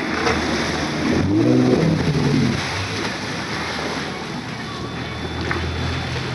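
Cruise boat's engine running with a steady low hum under the rush of water churned up in its wake. A voice speaks briefly about a second in.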